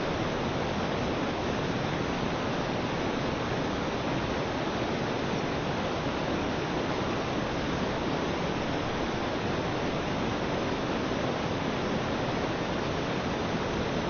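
Water rushing and splashing through the paddles of a turning wooden mill water wheel: a steady, unbroken rush.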